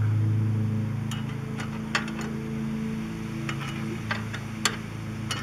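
Scattered light metallic clinks and taps, about seven in all, of a wrench working the brake adjuster eye bolt on a tractor's brake linkage, over a steady low hum.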